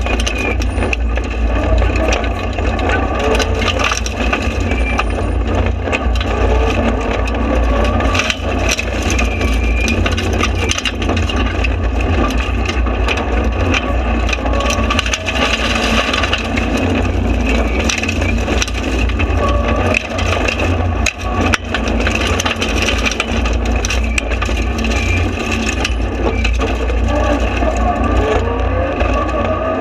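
In-cabin sound of a Mitsubishi Lancer Evo rally car driven flat out on a gravel stage. Its turbocharged four-cylinder engine revs up again and again through the gears over a constant clatter of stones striking the underbody and the stripped cabin rattling.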